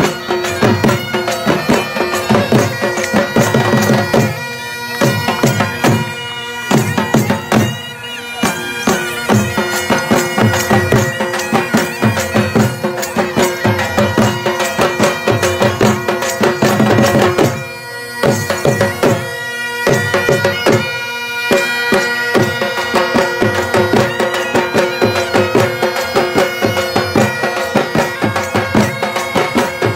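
Saraiki jhumar folk music: a reedy, bagpipe-like wind instrument plays a melody over a held drone, with a steady drum beat.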